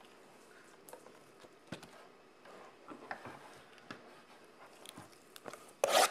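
Cardboard trading-card box and cards handled on a table: scattered light taps and clicks, then a loud crinkle of clear plastic wrap near the end.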